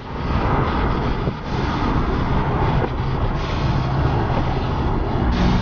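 Rush of wind and road noise on the microphone of a vehicle moving at road speed, over a low steady engine drone. A deeper engine note comes in near the end.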